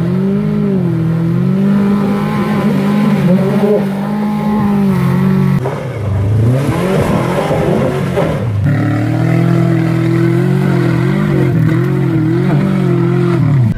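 Subaru Forester's flat-four engine held at high revs as the car drives through deep mud, its pitch wavering slightly. A little past the middle the revs swoop up and down several times, then hold high and steady again.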